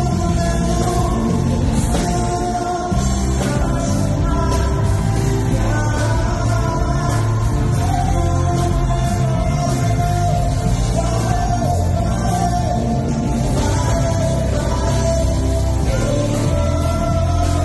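Live band music with singing over a strong, steady bass line.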